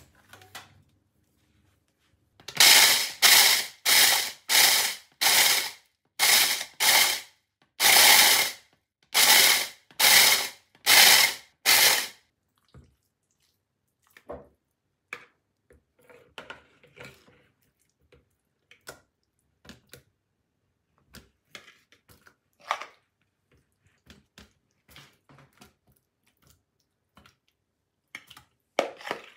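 Small electric food chopper pulsed in about a dozen short bursts, crushing cornflakes, starting about two and a half seconds in. After that, only faint clicks and taps of a fork against bowls.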